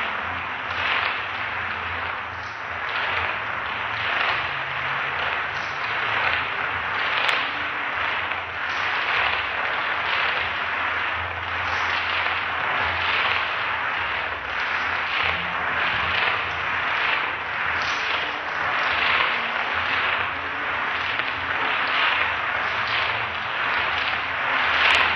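Beaded necklace whirling around a person's neck, a rhythmic swish about once a second as the strand of beads sweeps round.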